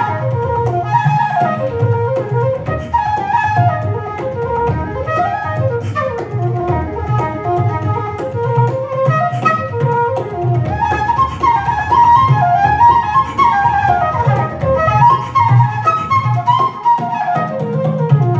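Irish traditional tune played live: a flute runs a fast, ornamented melody over a strummed acoustic guitar and a steady bodhrán beat.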